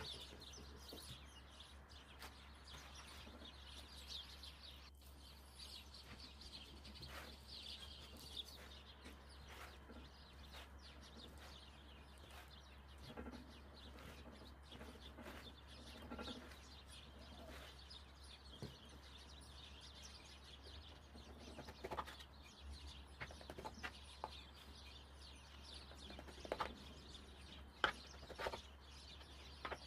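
Quiet background with a steady low hum and faint bird calls. Near the end come a few sharp taps and clicks as a knife slices the dough in the metal baking tray.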